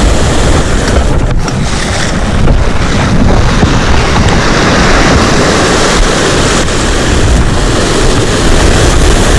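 Strong wind buffeting the microphone over the wash of waves on a rocky shore, a loud, steady rushing noise that is heaviest in the low end.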